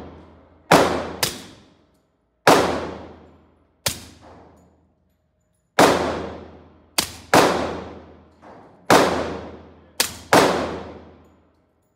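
Heckler & Koch HK45 Compact .45 ACP pistol with a SilencerCo Hybrid 46 suppressor firing about ten shots at an irregular pace, some in quick doubles. Each shot is a sharp crack followed by a long echo off the indoor range.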